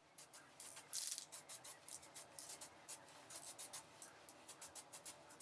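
Aerosol spray paint can in use: faint rattling clicks and scratches throughout, with a short hiss of spray about a second in.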